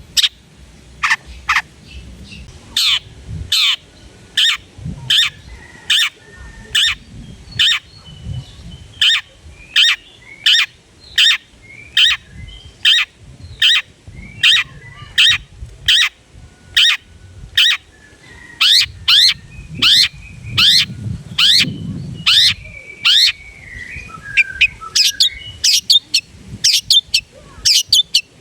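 Long-tailed shrike (cendet) singing its repeated 'toet toet' song: a long run of sharp, downward-sweeping notes about one to two a second, with softer chattering between them. The notes come faster near the end.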